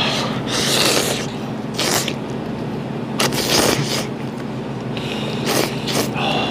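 A person slurping stir-fried ramen noodles off chopsticks, in several long, noisy sucking pulls.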